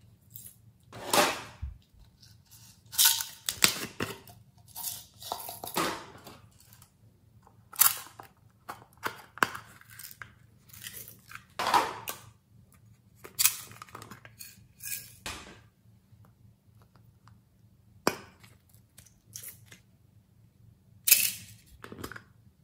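Hands handling plastic slime containers and toys: irregular clicks, knocks and short rustling bursts with quiet gaps between them, including a single sharp click near the end.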